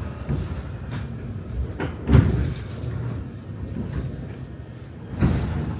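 Old Seoul Subway Line 3 car's sliding passenger doors giving two heavy clunks about three seconds apart, with lighter clicks between, over the steady rumble of the car.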